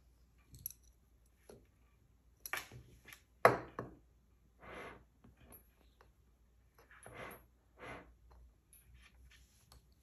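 Cockatoo's claws and beak tapping and scratching at a glass jar with a wooden lid: scattered clicks and several short knocks and scrapes, the loudest a sharp knock about three and a half seconds in.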